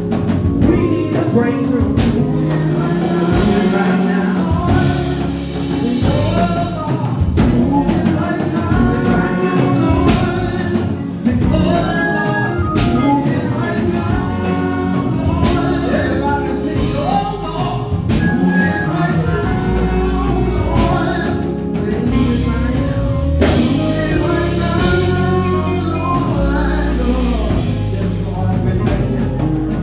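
Live gospel worship singing: several voices through microphones leading a song over keyboard accompaniment with a steady low bass line.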